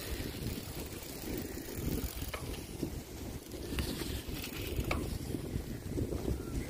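Firefox Rapid 21 bicycle rolling over a rough dirt path, its tyres crunching and frame rattling, under wind buffeting the microphone. Two sharp ticks come a couple of seconds apart.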